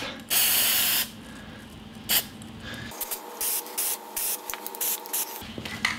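Aerosol spray can of flat tan paint hissing in one long pass of about a second, then a short spurt and a run of brief spurts.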